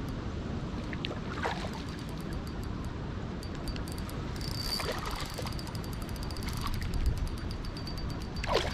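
Steady outdoor noise of river water, with three short splash-like sounds, the loudest near the end, and a faint fast high ticking throughout.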